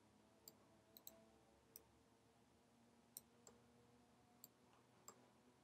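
Near silence: room tone with about eight faint, sharp clicks scattered irregularly, from a computer mouse and keyboard being worked while editing a 3D model.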